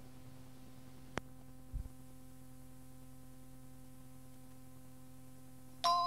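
Steady low hum and hiss of a cassette playback, with a faint click about a second in and a short low thump just after. Near the end a bell-like chime of several tones strikes and starts ringing out. It is the tape's cueing chime, which marks the start of the next answering-machine announcement.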